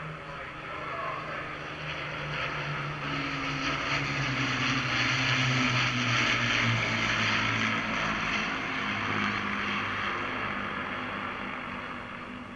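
The four-engined drone of two Avro Lancaster bombers' Rolls-Royce Merlin V12 engines flying past overhead. It grows to its loudest about halfway through, then fades as the pitch sinks a little.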